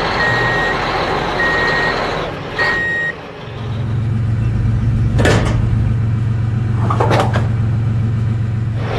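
A vehicle's reversing alarm beeps three times at one steady pitch. Then an engine starts up and runs with a steady low hum, with two brief whooshing sweeps over it.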